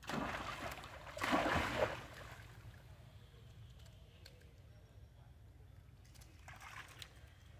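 Water splashing as monkeys swim and scramble in a stone pool: two splashy bursts in the first two seconds, then a shorter one near the end.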